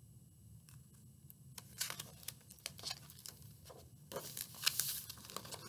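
Paper page of a picture book being handled and turned: a quiet start, then scattered crackles from about a second and a half in, and louder rustling of the page from about four seconds in.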